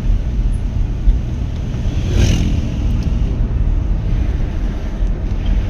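Vehicle driving along a road: steady low engine and road rumble, with a brief hiss about two seconds in.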